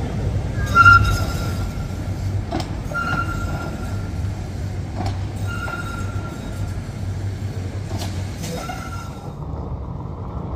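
Vintage ATM Class 1500 tram running: a steady low rumble with a few sharp clacks, and a high ringing tone that comes back four times, a second or so each, loudest the first time.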